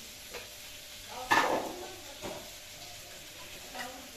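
Metal spatula clinking and scraping against a small steel cup and the pan as a ground spice paste is scraped into hot oil, over light sizzling. A few short clinks, the loudest about a second in.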